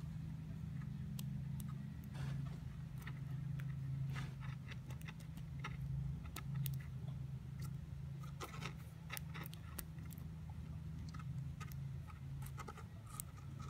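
Small, irregular clicks and scrapes of a cut zip tie working the pins of a pin-tumbler lock plug as it is being picked, over a steady low hum.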